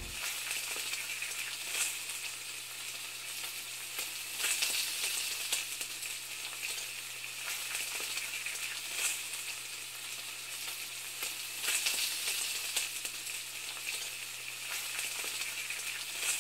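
Food sizzling in a hot pan: a steady hiss with irregular crackles and pops, over a low steady hum.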